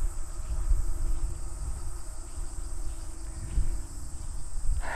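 Insects chirring in a steady, high-pitched drone from the bush, over an uneven low rumble on the microphone.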